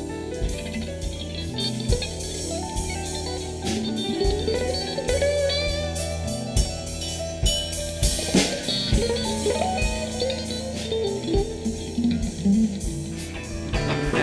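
Live blues band playing an instrumental passage: electric guitar lines over a steady low part and drum kit, with drum hits throughout.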